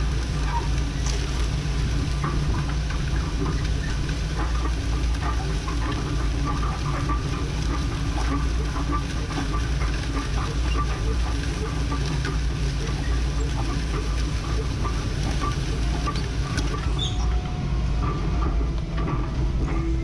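Tractor engine running steadily under load while pulling a disc harrow through a field: a constant low drone with light rattles and clicks from the implement.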